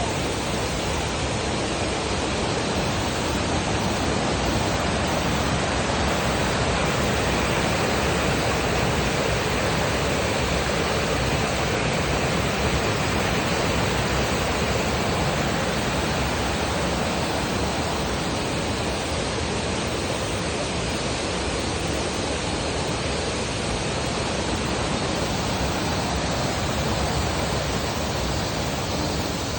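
Kannon Falls waterfall: water falling steadily in an even, unbroken rush.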